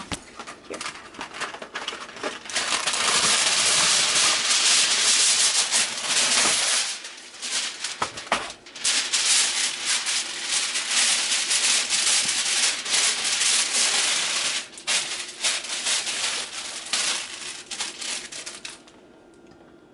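Aluminum foil being pulled from the roll and crinkled and folded by hand into a strip: a loud, continuous crinkling and rustling with sharp crackles. It stops shortly before the end.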